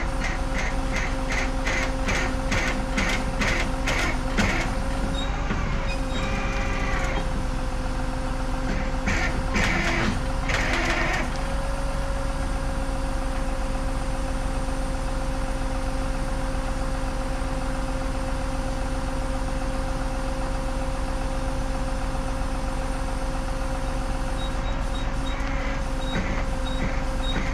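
Tow truck engine running steadily with a constant whine over it. A run of sharp, evenly spaced ticks, about two or three a second, comes in the first few seconds, and a short hissing burst comes around ten seconds in.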